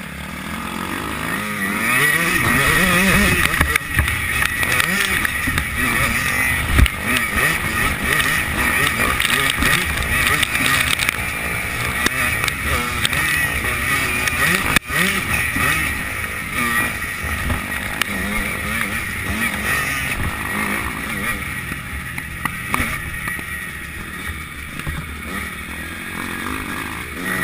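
Dirt bike engine heard onboard, revving up and falling back again and again as the rider accelerates and shifts through the corners and straights.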